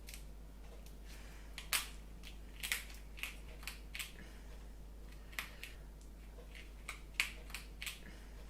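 Irregular sharp clicks and light taps, about a dozen spread over several seconds, the loudest about two seconds in and again about seven seconds in.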